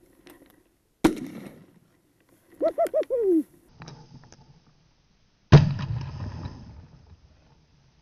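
A rooster pheasant cackling on the flush, four quick harsh notes and a falling last one. Then a single loud shotgun shot that rings out and fades over a second or so. A sharp crack comes about a second in, before the cackle.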